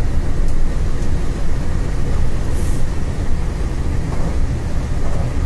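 Locomotive running at speed, heard from inside the driver's cab: a loud, steady, low rumble from the traction and the wheels on the rails, with a short hiss about two and a half seconds in.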